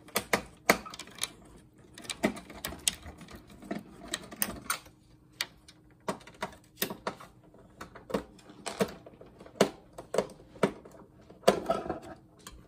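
Irregular clicks, taps and clatter of hand tools working on the plastic and metal parts of an old monitor while it is being taken apart.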